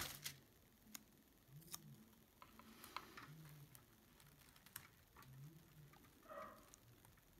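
Near silence with faint, scattered clicks and taps of fingers handling the small plastic doors of a toy shop while pressing a sticker onto them.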